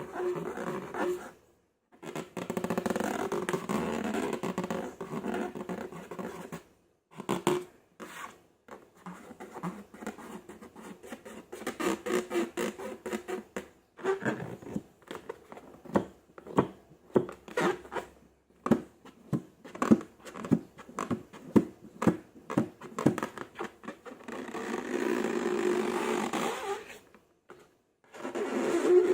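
Slime being squeezed and stretched by hand, making wet squelching and crackling. From about halfway it turns into a long run of quick, sharp pops and clicks. Several short silent breaks fall in between.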